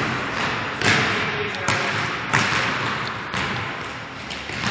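A basketball dribbled on a gym floor: about five bounces at an uneven pace, each echoing briefly in the hall.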